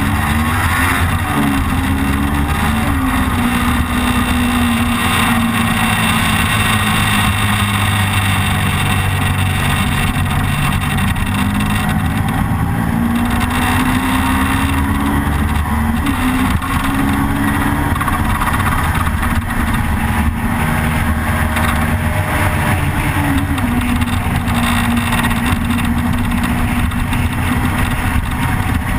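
Motorcycle engine running at road speed, its pitch rising and falling as the throttle opens and closes, under a constant rush of wind noise.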